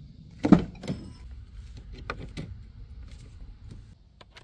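Ford Bronco driver's door opened by its handle: a sharp latch clunk about half a second in and a lighter knock just after. Low rustling and small clicks follow as someone climbs into the cabin.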